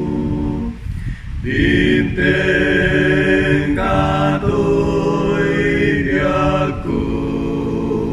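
One man's voice multi-tracked into several harmony parts, singing an Ilocano Christian song in long held chords, with a short break about a second in.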